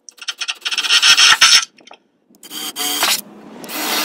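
Cordless drill with a 1/8-inch bit boring pilot holes through a steel Jeep Wrangler tailgate panel, metal grinding under the motor's whine. It goes in three bursts: a long one of about a second and a half, a shorter one after a short pause, and a third starting near the end.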